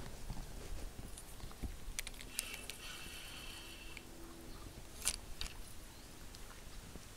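Spinning rod and reel being handled for a cast: small clicks, then one short sharp swish about five seconds in as the spoon lure is cast.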